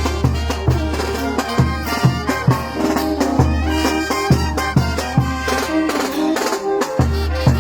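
Band music with brass and drums, a steady beat with sustained bass notes under the melody.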